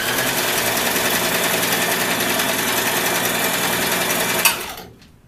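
Electric household sewing machine running steadily at speed, stitching fabric; near the end it stops with a click and winds down.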